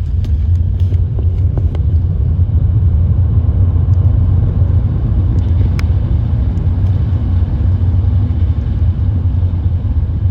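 Steady low rumble of a vehicle in motion, with a few faint clicks over it.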